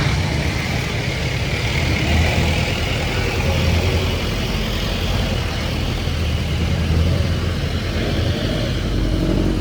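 A motor vehicle engine running steadily close by, with a low rumble over a constant hiss of road noise.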